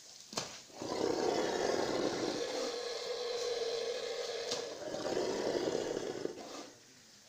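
A bull being slaughtered, letting out one long bellow of about five seconds. A short sharp knock comes just before it.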